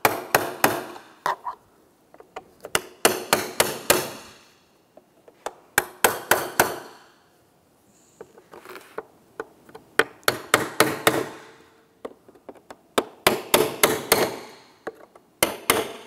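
Hammer tapping a small punch to knock drilled-out rivets from a plastic glove box door, in bursts of several quick taps every few seconds.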